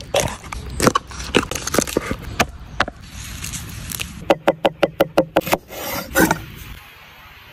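A large kitchen knife cutting on a wooden cutting board: scraping strokes as the blade goes through a yellowtail's head, sharp knocks of the blade on the wood, and a fast, even run of chopping knocks a little past the middle.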